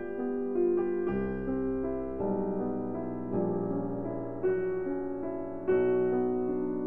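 Slow background piano music, a new chord struck about once a second and left to ring.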